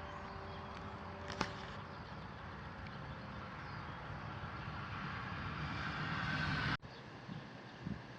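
Distant engine noise, a steady sound that slowly grows louder, with a single click about a second and a half in; it cuts off abruptly near the end.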